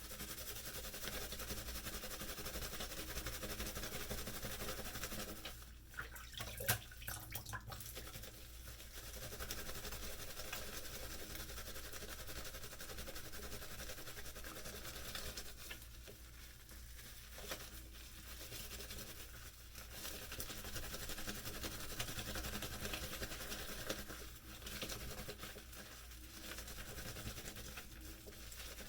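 A wet, soaped sock being worked by hand to whip up shaving lather: a steady soft wet rubbing that pauses briefly a few times.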